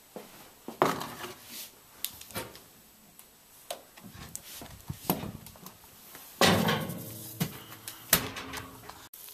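Oven door of an electric cooker being handled as a pizza goes in: a series of knocks and clicks, with a louder, longer clatter about six and a half seconds in.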